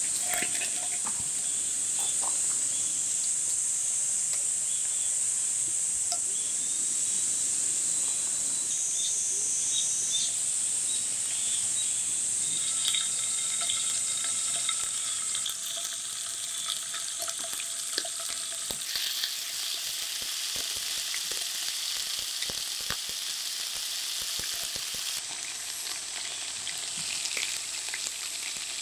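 Frying sizzle from a black frying pan set over a charcoal fire, a steady hiss with scattered crackles and pops. Near the end, chicken drumsticks are frying in the pan.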